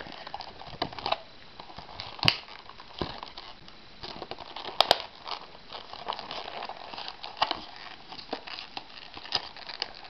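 Clear hard-plastic blister packaging being flexed and pried open by hand: the plastic crinkles and crackles, with scattered sharp snaps. The loudest snaps come about two seconds in and as a close pair about five seconds in.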